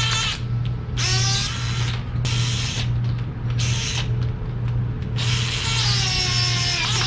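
Handheld power drill or driver run in four short bursts, its motor whine spinning up and winding down each time, the last and longest near the end. A steady low hum sits underneath.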